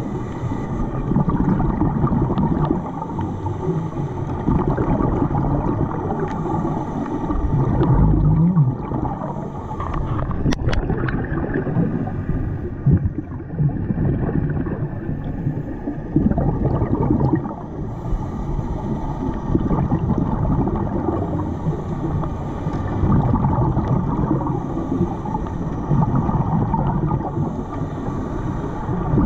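Underwater sound of scuba breathing: regulator exhaust bubbles gurgling out in repeated bursts every several seconds, over a steady low rumble of the water.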